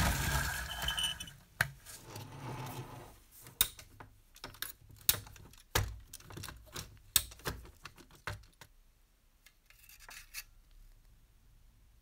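Rusty Fleischmann tinplate clockwork toy locomotive being handled, making irregular sharp metallic clicks and clinks as its winding key is fitted into the clockwork, which no longer runs. The clicks stop about three-quarters of the way in.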